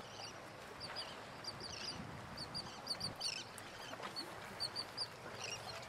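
Waterbirds calling, many short high calls following one another in quick runs over a faint background.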